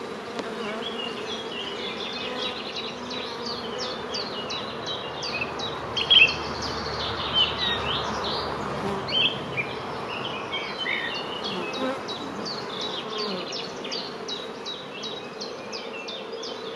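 Honeybees humming steadily from an open hive as brood frames are lifted out. Many short, high chirps of small birds sound over the hum, with a few brief louder sounds around the middle.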